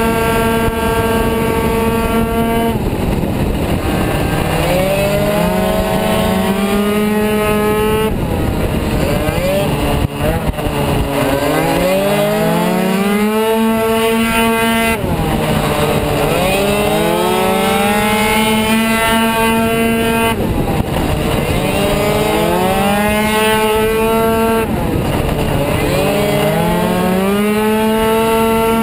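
Kymco Super 9 70 cc two-stroke racing scooter engine at full throttle. It holds a steady high-pitched note, and several times the revs drop suddenly as the rider backs off for a corner, then climb again over a few seconds as it accelerates out.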